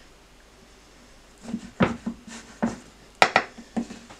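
Kitchen knife cutting soft fudge and knocking on a wooden chopping board: after a quiet start, a run of sharp knocks, several close together.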